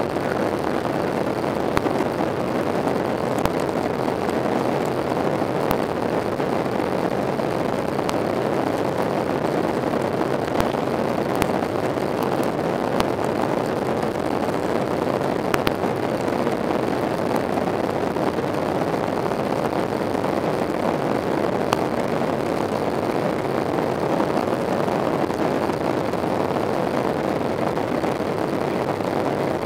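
Steady cabin noise inside a Boeing 737-800 in flight: an even rush of engine and airflow noise, with a few faint clicks.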